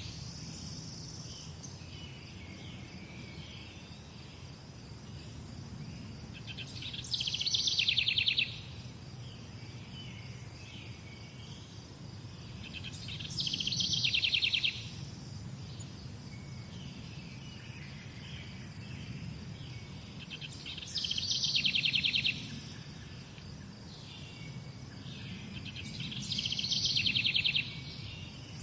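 Morning birdsong. A songbird repeats a fast, high trill four times, each lasting a little over a second. Fainter chirps come in between, over a steady low rumble.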